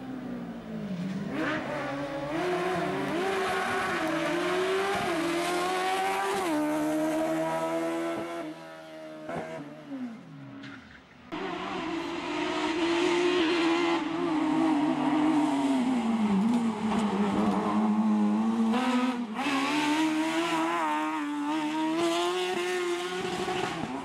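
Slalom race car engines driven hard through the bends, the pitch climbing and dropping with each gear change. The first car's note falls and fades as it drives off. Then, after an abrupt cut, a second car comes up revving, lifts off into a corner and accelerates again.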